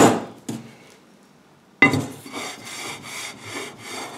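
A steel straightedge set down with a knock, then slid back and forth by hand over another straightedge coated with marking paint, to spot the high points: a rhythmic scraping of about three strokes a second, starting about two seconds in.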